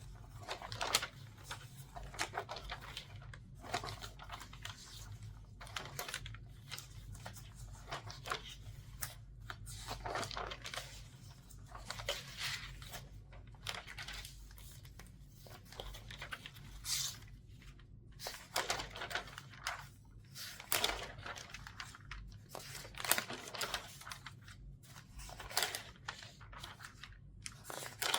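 Newspaper pages being turned quickly by hand: a run of paper rustles and swishes, about one a second, at an uneven rhythm.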